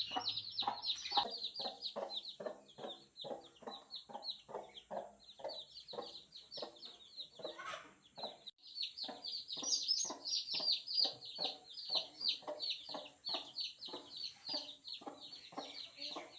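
Newborn chicks peeping rapidly and continuously, with a hen clucking steadily among them at about two to three clucks a second.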